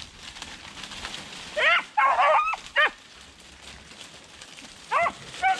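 Beagle baying while trailing a rabbit through brush: a few loud, pitched hound barks in two groups, one about a second and a half in and another near the end.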